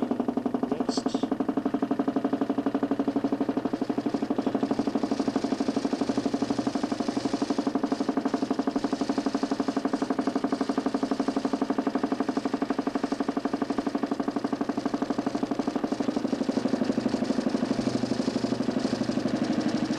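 DC motor spinning a 40 cm plywood Nipkow disc in a homemade mechanical television. It makes a steady running drone with a fast, even pulsing.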